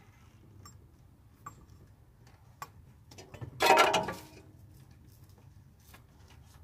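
Small metallic clicks from hose clamp pliers gripping a spring hose clamp. About three and a half seconds in, a louder half-second scrape as the clamp and rubber radiator hose are worked into place.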